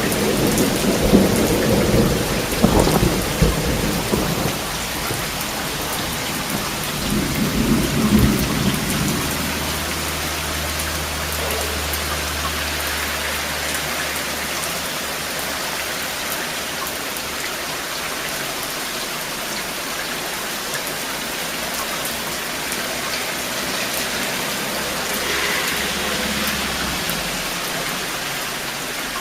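Thunderstorm: steady rain with rolling thunder. The thunder rumbles loudest in the first few seconds and again about eight seconds in, then fades to a low, distant rumble under the rain that dies away near the end.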